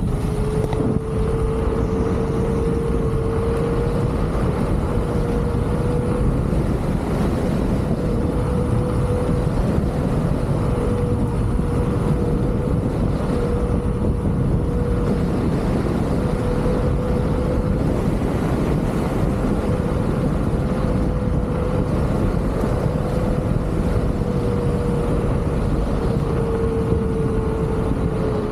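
LeaperKim Lynx electric unicycle riding along, its hub motor giving a steady whine, dipping slightly in pitch near the end, over a heavy rumble of wind and road noise on the microphone.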